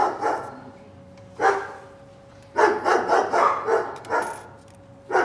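Dog barking in separate bursts: a single bark about a second and a half in, then a quick run of barks, then more barking starting right at the end.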